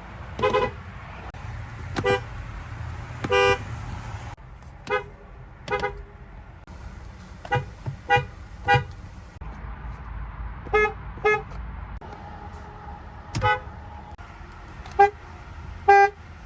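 About a dozen short car horn toots from several different cars, some in quick pairs, each a brief beep of a different pitch.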